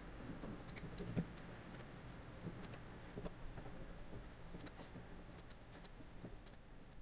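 Faint, scattered clicks and taps from writing, a dozen or so irregular ticks over low room hiss.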